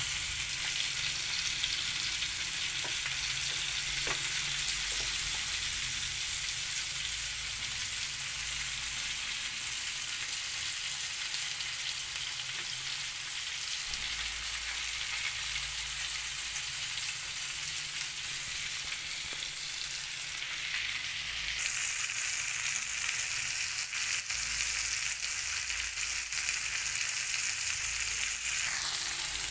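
T-bone steak sizzling steadily in a frying pan in freshly added melted butter, with whole garlic cloves frying around it.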